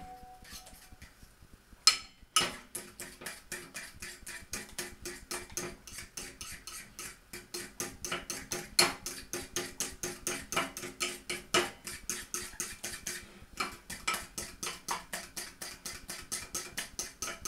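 Metal fork beating batter in a ceramic bowl, tapping against the bowl in a quick, steady rhythm of about five taps a second. Two sharper knocks come about two seconds in, before the steady beating starts, and there is a short pause near the three-quarter mark.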